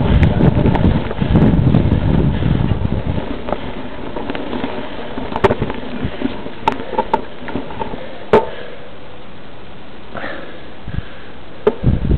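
Wind rumbling on the camera microphone while it is moving, dying down about three seconds in. After that a quiet steady hiss with a handful of short sharp clicks.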